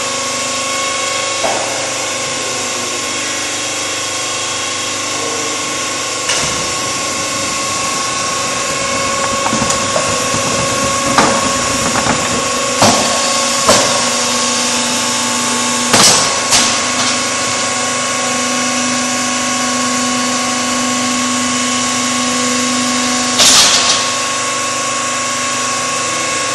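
Metalika VPS 2000 GT/A concrete block making line running under test: a steady machine drone with a constant high whine, and a lower hum joining partway through. Sharp metal clanks from the steel pallet handling come in a cluster through the middle and once more near the end.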